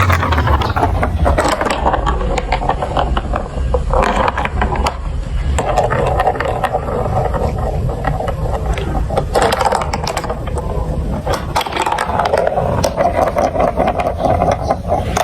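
Marbles rolling and clattering along plastic marble-run track pieces: a steady rolling rumble with many sharp clicks and rapid rattling ticks.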